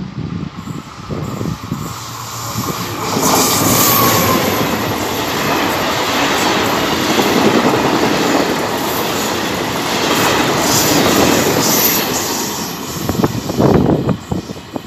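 Passenger train passing close at speed: the rumble of wheels on rail builds over the first few seconds, holds loud and steady, then drops away near the end.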